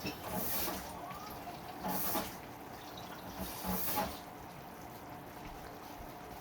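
Seafood and eggplant sauce simmering in a pan, with a little water just added. There are three short, louder bursts of noise about two seconds apart, then a quieter, steady hiss.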